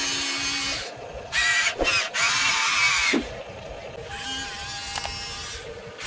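Huina remote-control excavator's motors whirring as the arm and bucket move, in stops and starts, louder through the first half and quieter after about three seconds.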